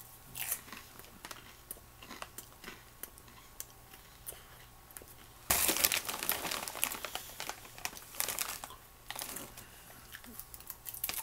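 Crinkling of a popcorn snack bag as a hand rummages in it, in scattered bursts with the loudest stretch about halfway through, along with popcorn being chewed.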